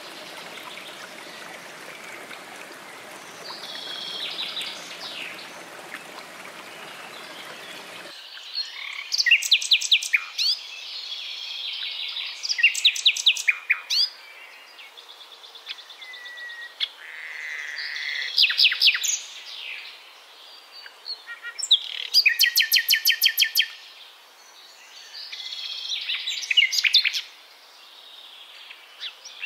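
A small waterfall splashing into a stream, with a few faint bird notes, cuts off about eight seconds in. Then a common nightingale sings loud phrases of rapid repeated notes, trills and whistles, with short pauses between them.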